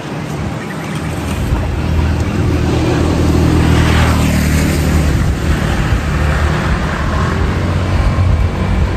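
A motor vehicle passing close by, its engine hum building up, loudest about four seconds in with a rise and fall in pitch as it goes past, then running on over steady traffic noise.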